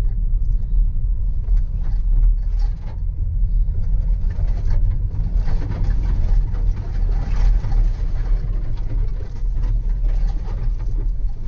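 Škoda Karoq cabin noise while driving slowly over a rough dirt field track: a steady low rumble from the tyres and suspension, with scattered small knocks and rattles.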